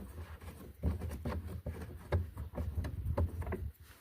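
Scattered light taps, clicks and scrapes of hands working a plastic retaining knob loose from the car's trunk lining.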